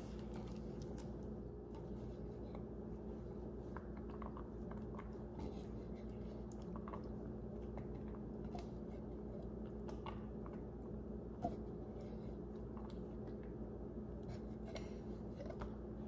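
Faint small clicks and soft taps of canned white beans being dropped by hand onto a casserole in a glass baking dish, one sharper click about eleven and a half seconds in, over a steady low hum.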